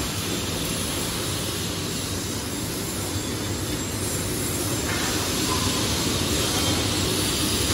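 Steady, loud din of factory machinery: a dense rumble with a hiss above it, without distinct strikes or a clear rhythm.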